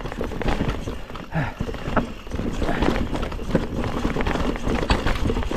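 Mountain bike rattling and clattering over roots and dirt on a singletrack descent, with a steady rumble of the tyres and frequent sharp knocks from the bike as it hits roots.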